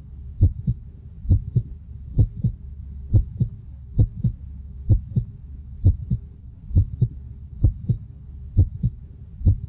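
Slow heartbeat: paired low thumps (lub-dub) repeating a little faster than once a second, over a faint low hum.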